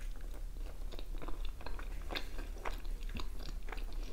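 A person biting into and chewing a chicken shawarma wrap in lavash, close to the microphone: irregular small wet mouth clicks and crackles.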